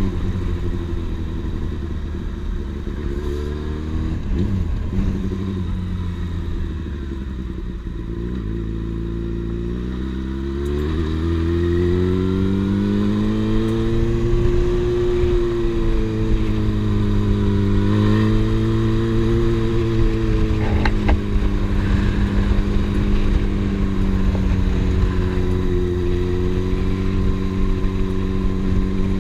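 Yamaha FZ6 Fazer's 600 cc inline-four engine running under way at low revs. The revs sink gradually, climb again as it accelerates, then hold fairly steady with small dips.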